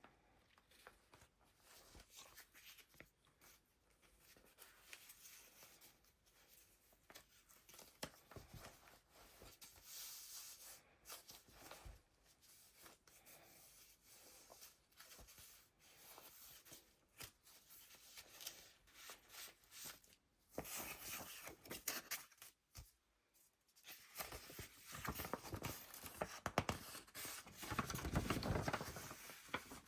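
Paper pages of a handmade junk journal being turned and handled: soft, irregular rustling and rubbing of layered papers, louder in the last few seconds.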